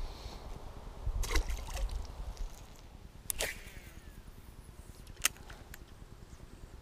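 A perch being handled and let go at the water's edge: a few sharp clicks and knocks from the tackle and hands, and a small watery splash, over a low rumble.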